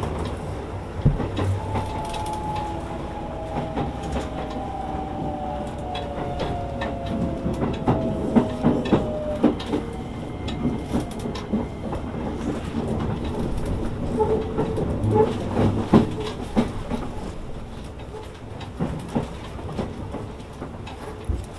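Shin-Keisei N800 series electric train, heard from inside the car, slowing on the approach to Matsudo terminus. Its Toyo IGBT VVVF traction system gives a whine that falls steadily in pitch over the first ten seconds or so as the train brakes. The wheels click and knock over rail joints and points, over a constant hiss of the car's air conditioning.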